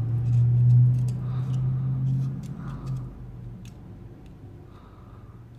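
Light metallic clicks and ticks as the steel jaws of digital calipers are slid and closed on a watch case and its steel mesh bracelet. Under them runs a low steady hum, loudest in the first three seconds, then fading.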